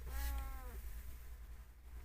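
A domestic cat meowing once, a short call of under a second that dips slightly in pitch at the end.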